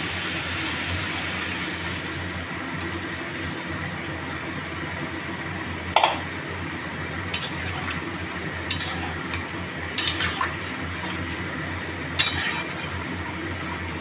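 Water being poured into a metal pan of chicken and vegetables, then a spoon stirring the soup and clinking against the pan about five times in the second half.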